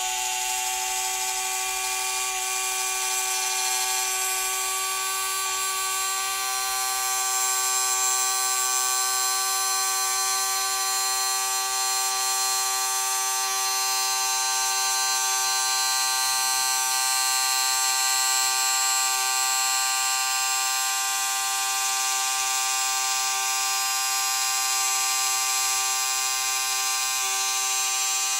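Small electric motor and gearbox of a motorized Walthers model bascule bridge running as the span lowers: a steady whine that holds one even pitch, with no rising and falling.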